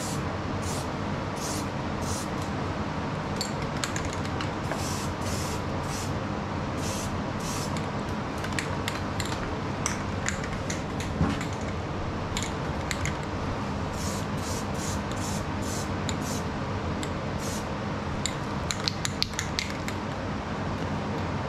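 Aerosol spray-paint can hissing in many short bursts, laying paint over bare, freshly ground steel to keep it from rusting. Underneath is a steady background hum, and a few sharp clicks come near the end.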